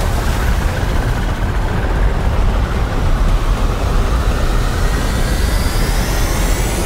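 Film sound design of a giant sandworm bursting up out of the desert: a loud, steady deep rumble of churning sand. Over the second half a high whine rises steadily on top of it.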